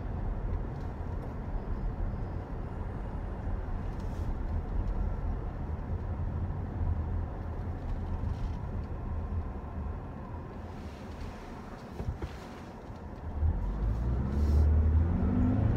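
Inside the cabin of a Toyota RAV4 Hybrid on the move: a steady low road and tyre rumble, easing off a little about twelve seconds in. Near the end the 2.5-litre Dynamic Force petrol engine comes in louder, rising in pitch as the car accelerates.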